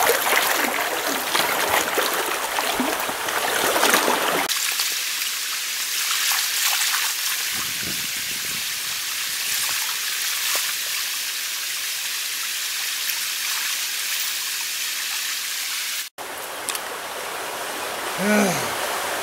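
Shallow stream flowing: a steady rush of water, a little fuller for the first four seconds or so.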